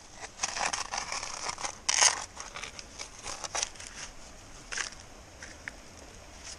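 Hand tool scraping and digging into creek gravel and small stones: a quick run of gritty scrapes and stone clicks, loudest about two seconds in, then a few lighter scrapes and taps.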